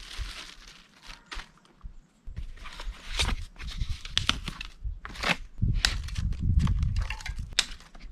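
Packing materials and cardboard being handled during unboxing: scattered rustles and sharp clicks, with dull low thumps and handling rumble from about two seconds in.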